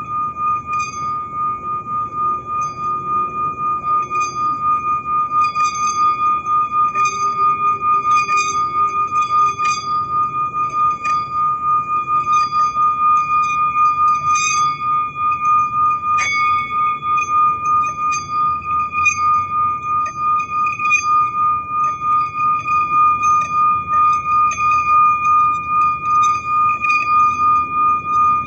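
Metal singing bowl held on the palm and sung by rubbing a wooden mallet around its rim: one sustained ringing tone with a higher overtone, wavering steadily in loudness as the mallet circles. Light ticks of the mallet against the rim come and go, with one sharper click about halfway.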